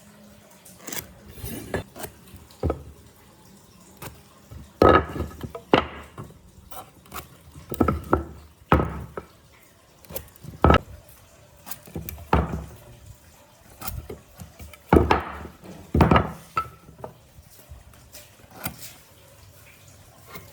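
A series of irregular knocks and clunks, some with a short ring, as of hard objects being set down or struck.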